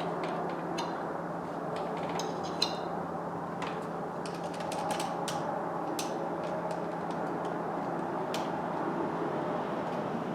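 Scattered light clicks and knocks of cold air intake parts and hand tools being handled, with one sharp click about two and a half seconds in and a couple of brief squeaks, over a steady low hum and hiss.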